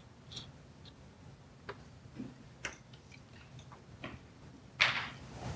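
Quiet room with scattered faint clicks and ticks, then a short breathy rush into a handheld microphone near the end.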